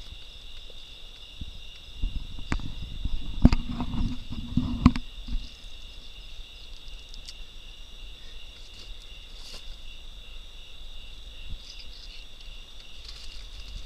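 Steady high buzz of a night insect chorus. About two seconds in, a few seconds of close rubbing and knocking with several sharp knocks, then only the insects again.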